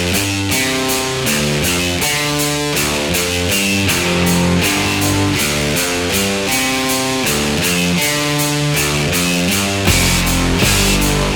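Background music: guitar-driven rock with a steady drum beat.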